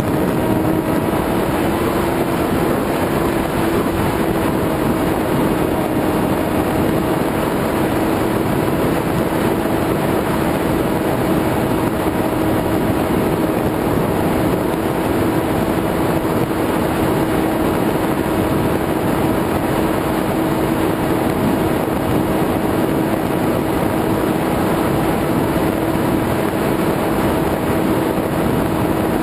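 Electric motor and propeller of an FPV model aircraft, heard through its onboard camera: a steady whining hum over a constant rush of wind. The pitch dips slightly in the first second, then holds level.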